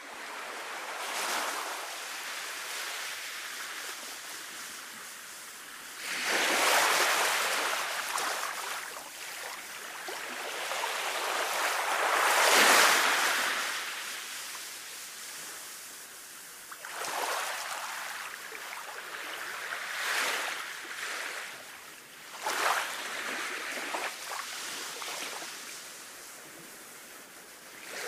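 Sea waves breaking and washing up on a beach, a wash of surf that swells and falls again and again, loudest about halfway through.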